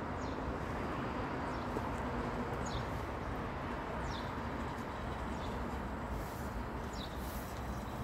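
A bird calling with short, high, downward-sliding notes, repeated about every second or so, over steady outdoor background noise.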